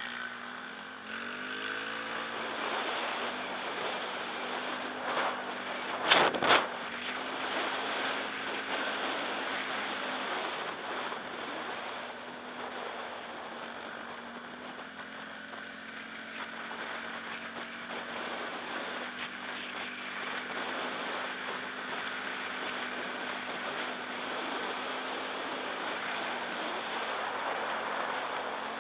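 Quad bike engine running at speed with wind buffeting the microphone; the engine revs up about a second in. Two hard knocks about six seconds in.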